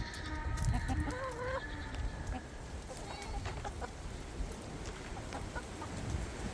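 Chickens clucking over a steady rumble of wind on the microphone. Most of the calls come in the first two seconds, with a few short ones about three seconds in.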